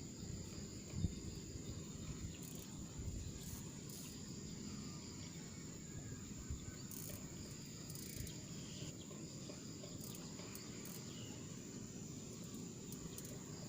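Insects, crickets or cicadas, keep up a steady high-pitched chirring, over a low rumbling noise.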